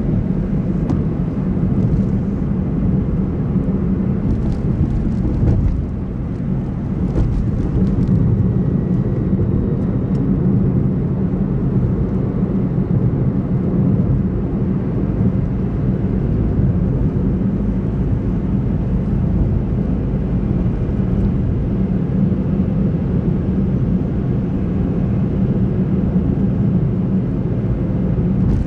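Car driving at a steady speed: a steady low rumble of tyre and engine noise, with a brief dip in loudness about six seconds in.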